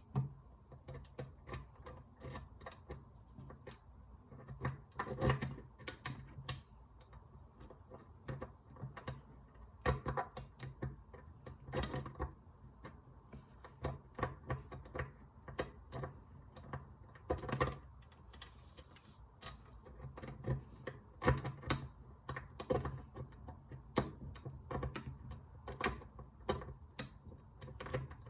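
Lock picking tools raking and wiggling in the lock of a SnapSafe lock box: irregular small metallic clicks and ticks, some louder than others, over a low steady hum.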